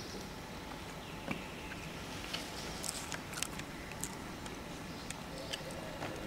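Steady background noise of a gathering of people, with a scattered run of light clicks and taps.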